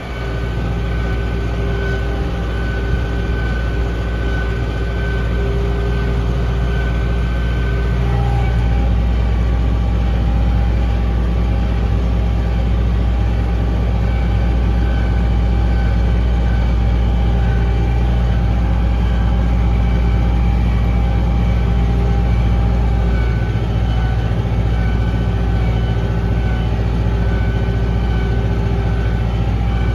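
1984 White 2-75 tractor engine running steadily under way. About eight seconds in, the engine note shifts and gets a little louder, then holds.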